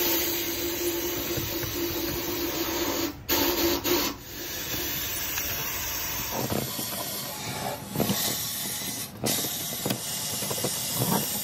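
Air-fed blast gun in a sandblasting cabinet hissing steadily as it blasts rust off a brake drum. It starts abruptly and cuts out briefly twice, about three and four seconds in.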